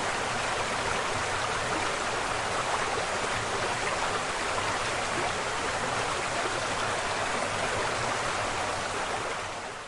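Steady rushing noise of a large waterfall's falling water, fading away just before the end.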